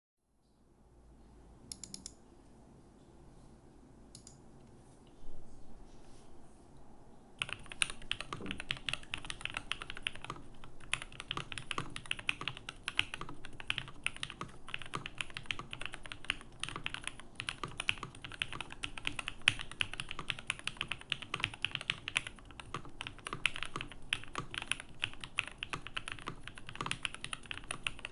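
Eniigma Infinitum mechanical keyboard with lubed BCP switches (Cherry top housings, Cream stems, H1 bottom housings) in an aluminium full plate with no foam, being typed on. A few separate keystrokes come first, then fast, continuous typing starts about a quarter of the way in.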